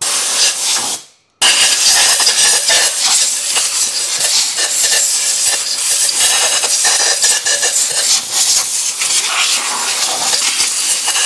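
Compressed-air blow gun blowing debris out of the spark plug wells of a four-cylinder engine's cylinder head, a loud, steady rushing hiss. A short blast comes first, then after a brief break about a second in, one long continuous blast.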